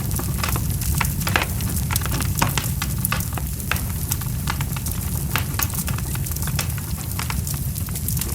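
Fire crackling: frequent sharp, irregular pops and snaps over a low, steady rumble of burning.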